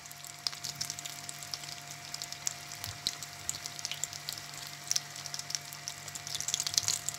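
Samosas deep-frying in hot oil: a steady sizzle with many small crackles, over a faint steady low hum.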